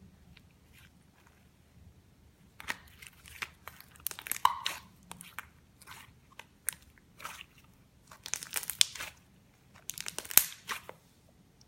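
Clear slime being squished and poked by hand, making bursts of crackling clicks and pops, in several separate handfuls with short pauses between.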